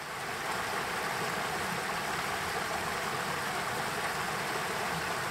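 Shallow mountain stream running over stones: a steady rush of water, swelling in over the first half second.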